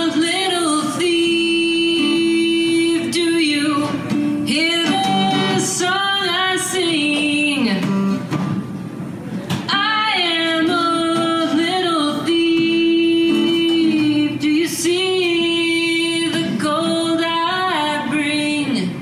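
A woman singing long, held notes while strumming an acoustic guitar.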